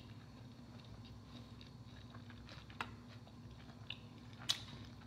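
Quiet close-miked chewing of a soft cheeseburger slider on a bun, with small mouth ticks and two sharp clicks, the louder one near the end, over a faint steady hum.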